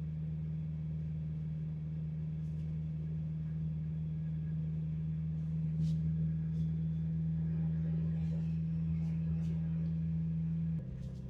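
Jeep Wrangler TJ's engine droning steadily, heard from inside the cab while driving. Its pitch steps down abruptly just before the end.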